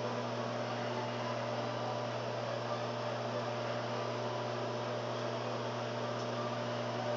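LG microwave oven running mid-cook: a steady electrical hum with fan noise that does not change.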